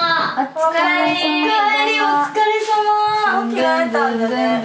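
A woman's voice singing a melody in held notes that step from pitch to pitch.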